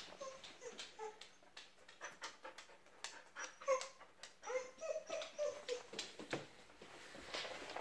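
Japanese Akita dog whining in short, high, squeaky whimpers, with a quick run of them about four and a half seconds in. Light clicks of its claws on the wooden floor come in between.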